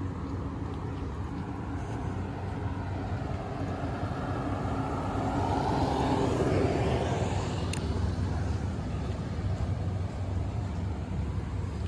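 A golf cart driving past on a wet road, its tyre hiss swelling to a peak about six seconds in and then fading away, over a steady low rumble. A single sharp click sounds near the peak.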